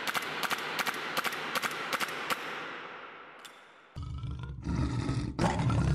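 Intro sound effects: a quick run of sharp cracks, about four a second, over a hissing wash that fades out, then from about four seconds in a loud, low, roaring rumble that comes in chunks.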